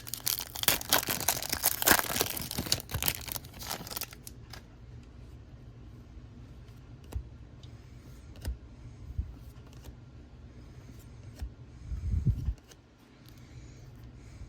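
A foil baseball card pack wrapper being torn open and crinkled, loud for about the first four seconds. Then it goes quieter, with scattered soft clicks as the cards are handled and a low thump near the end.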